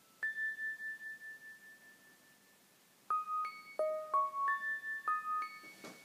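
Clean electronic notes from a Music of the Plants device, translating small changes in the electrical resistance of a piece of amber into pitch. A single high note sounds just after the start and fades over about two seconds; after a pause, a quick run of about seven notes at different pitches follows from about three seconds in, each starting suddenly and fading.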